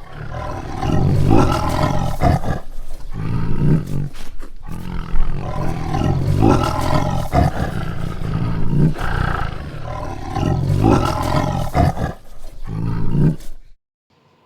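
Lion roaring and growling in a series of long, deep bouts with brief pauses, stopping about a second before the end.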